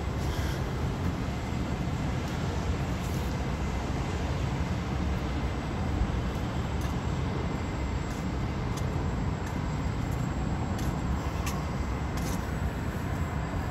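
Steady low rumble of city street traffic, with a few faint ticks.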